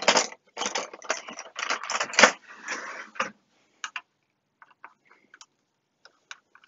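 Metal tools clattering while a drawer is rummaged, with one sharp clack a little past two seconds in. About halfway through this stops and gives way to sparse, faint ticks of a screwdriver working at a screw in the oscilloscope's rear foot.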